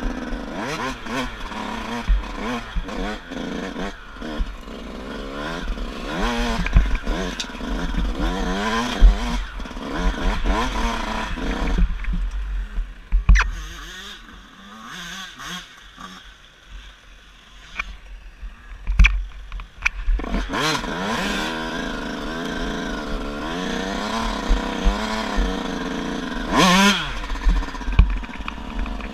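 Dirt bike engine heard from the rider's helmet, revving up and falling back again and again as it is ridden over rough ground. It drops low and quiet for several seconds in the middle before pulling hard again. Short knocks and bumps run through it.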